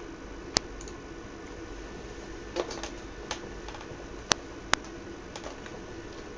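About five sharp, scattered clicks from oscilloscope controls being worked to move a trace on the screen, over a low steady hum.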